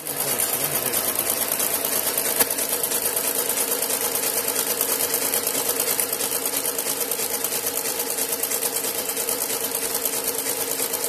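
XB0320 outside-seam pattern sewing machine stitching around the edge of a shoe, a fast, steady stitching rhythm. A single sharp click comes about two and a half seconds in.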